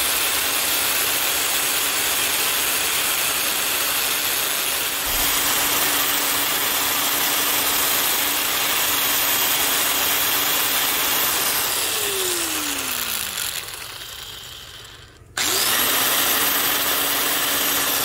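Electric grinder's cutoff wheel running with a high whine while the end of a steel flexible drive cable is ground against it to round it off. About twelve seconds in the motor winds down with a falling pitch. It is started again about three seconds later and spins back up.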